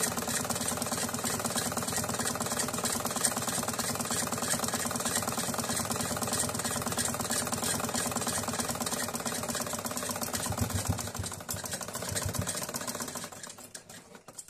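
Black domestic sewing machine running steadily at a fast stitch rate, sewing the folded side-slit edge of a kurti. It winds down and stops about a second before the end.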